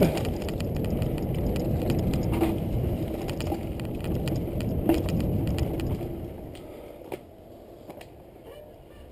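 Mountain bike rolling fast down a dirt singletrack: tyres rumbling over the dirt, with rattles and knocks from bumps. About six seconds in the rumble dies away to a much quieter level with a few small clicks as the bike slows.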